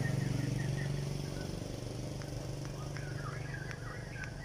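A motor vehicle engine hums steadily and slowly fades away. From about three seconds in, birds chirp, with a few light clicks.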